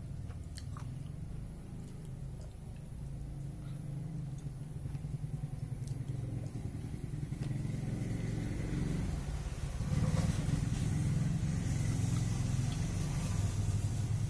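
Low, steady rumble of a motor vehicle engine, getting louder about ten seconds in. Faint clicks of chewing can be heard over it.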